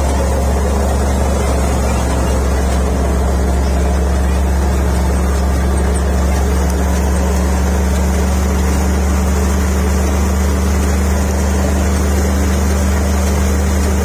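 Tractor-driven wheat thresher running steadily while threshing wheat: the tractor engine and the thresher's spinning drum make one loud, even, low drone that holds its pitch throughout.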